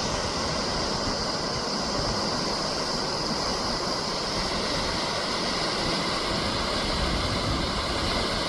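Steady rush of fast-flowing water, a creek running high with spring snowmelt.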